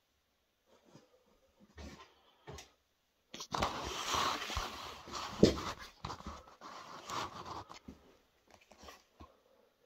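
Handling noise from a steel bolt wrapped in cloth, rustling and shifting in the hands. It is loudest from about three and a half to eight seconds in, with one sharper knock about halfway through.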